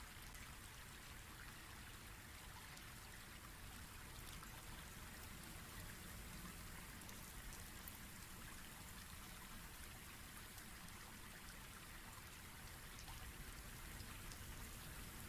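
Near silence: a faint, steady hiss of background noise, with a few very faint ticks.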